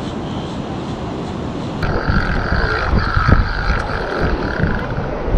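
Wind buffeting the microphone, a steady rumble throughout. From about two seconds in, a high, steady whine sounds over it in four or five short stretches.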